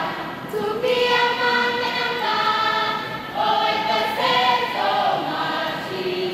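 A group of young voices singing a hymn-like song together in held, stepwise notes, with a couple of sharp timbrel strikes.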